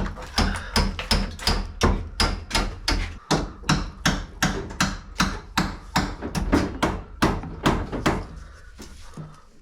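Hammer blows struck at an even pace, about two and a half to three a second, stopping about eight seconds in, over a low steady hum.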